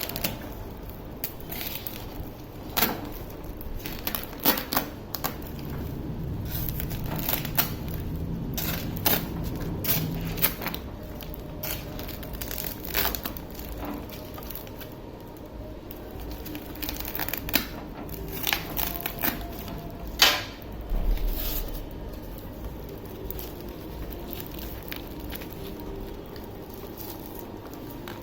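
Packaging being handled and opened by hand: plastic and cardboard crinkling and rustling, with many scattered sharp clicks and taps and one louder knock about twenty seconds in.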